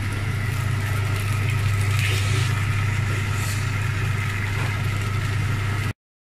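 Steady low mechanical hum of a kitchen fan running, with light scraping of a spatula stirring noodles in a non-stick frying pan. The sound cuts off abruptly near the end.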